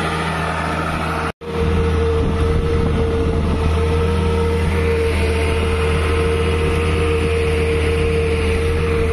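Ashok Leyland six-cylinder diesel engine of a 150 hp tractor running steadily under load, pulling a 13-tine cultivator through wet soil. The sound cuts out for an instant about a second and a half in, then comes back a little louder as heard from the driver's seat, with a steady whine over the engine.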